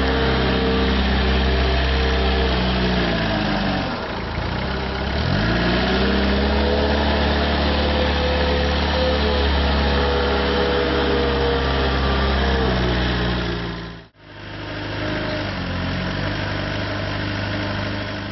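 JCB 515-40 compact telehandler's engine running steadily; about four seconds in the revs drop away and about a second later climb back up. The sound breaks off sharply for an instant around fourteen seconds in and returns at a lower, steadier pitch.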